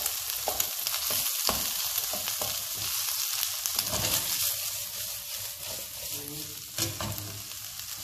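Onion, sliced black olives and mashed boiled potato sizzling in oil in a nonstick frying pan over a high gas flame, with a wooden spoon scraping and tapping against the pan as the food is stirred. One louder knock comes near the end.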